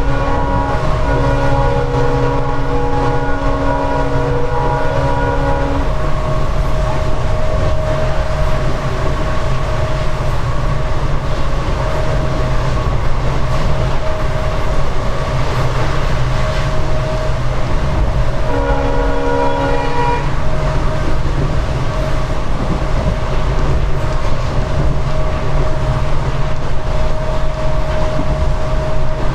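WDP4B diesel locomotive's EMD 16-cylinder two-stroke engine running under load with a steady, powerful hum over rail rumble. The multi-tone horn sounds a long held chord for about the first six seconds and again briefly around the nineteenth second.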